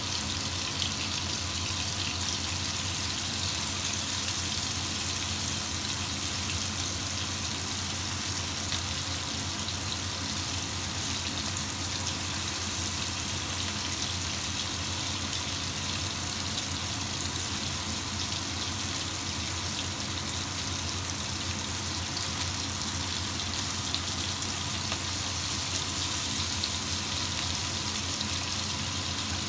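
Chicken pieces and onion sizzling steadily in hot oil in a nonstick wok, over a steady low hum.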